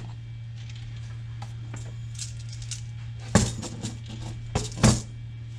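A metal key ring and chain being handled: faint small clinks, then a few sharp metallic clicks and knocks, the loudest about three and a half seconds in and just before the end, over a steady low hum.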